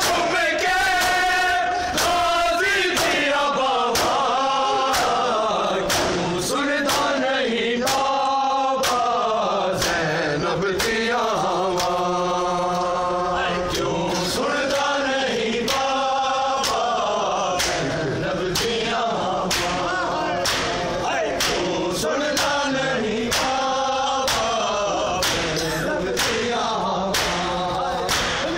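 Crowd of men chanting a noha in unison, with sharp slaps of hands striking bare chests (matam) keeping a steady beat.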